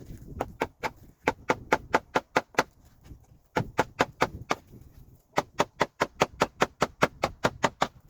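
Runs of quick, evenly spaced hammer blows on wood, about five a second, with short pauses between runs: nails or staples being driven into timber.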